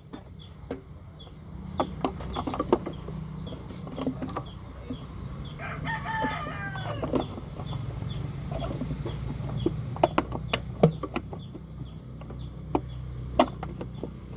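A rooster crowing once, about six seconds in, over scattered sharp clicks and knocks and a steady low hum.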